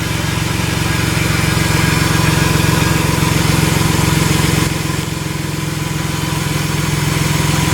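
Car engine idling steadily with its timing belt cover removed, so the belt and pulleys run exposed.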